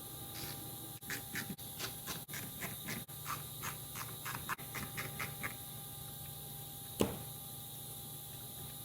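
Hand work on a cordless drill's plastic housing and parts during reassembly: a run of short squeaks, about two or three a second, for several seconds, then a single sharp click about seven seconds in.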